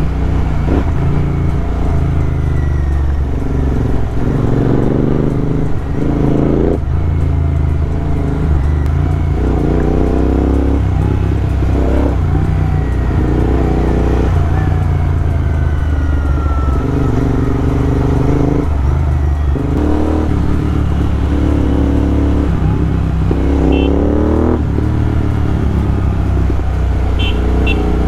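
Royal Enfield GT650's parallel-twin engine running on the move over a steady low rumble. Its pitch climbs again and again and drops back, as it accelerates and shifts up through the gears.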